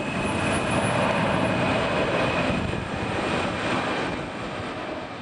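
Jet airliner's twin engines during climb-out after takeoff: a steady rushing noise with a faint high whine, fading near the end.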